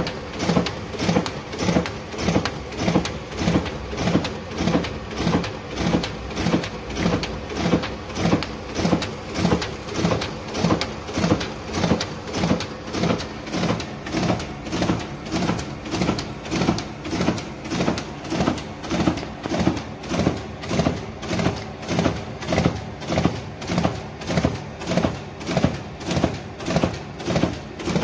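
Riso CV3230 digital duplicator running a print job, feeding sheets one after another through its print drum in a steady, evenly repeating mechanical rhythm of about one and a half cycles a second.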